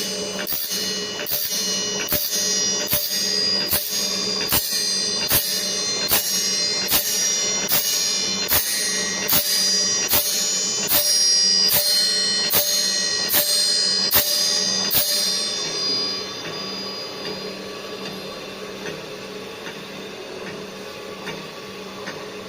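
GD 450Q circular saw blade grinder working the blade tooth by tooth, with a sharp click about one and a half times a second and the steel saw blade ringing after each stroke. The strokes stop about 15 seconds in, and the machine's steady hum runs on and fades.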